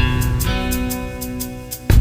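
Instrumental break in a pop-rock song: a strummed guitar chord rings over a steady drum beat, with a new chord struck at the start and again near the end.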